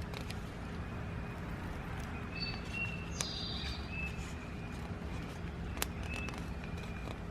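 Background ambience: a steady low hum with a few short, high chirps and scattered faint clicks, the sharpest about six seconds in.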